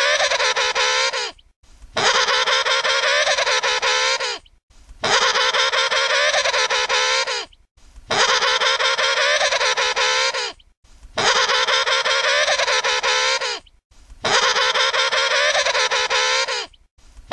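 Emperor penguin trumpeting: the same wavering, harmonic-rich call repeated about every three seconds, each call lasting about two and a half seconds with a short break between.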